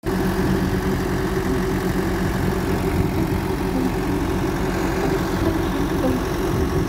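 Recovery truck's engine running steadily, with its power take-off engaged to drive the flatbed's hydraulics.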